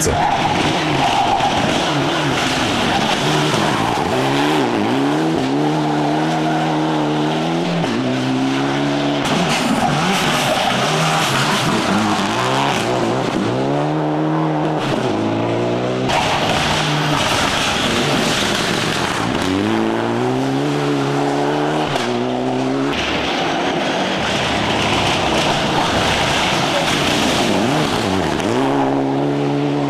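Rally cars at full speed on a special stage, one after another: engines revving hard and climbing in pitch, dropping back at each upshift, with tyres sliding and scrabbling on the loose, dusty surface through the corners.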